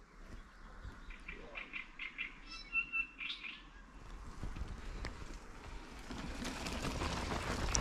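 Small songbirds chirping, a run of short calls and a brief clear whistle in the first half. From about halfway a rough rushing noise, the bicycle rolling along the forest track, grows louder and covers them.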